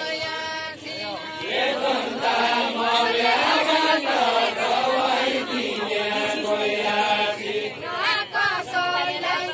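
A group of men singing a Far Western Nepali deuda folk song together in a chanting style. The voices carry a long drawn-out line through the middle, and another phrase starts near the end.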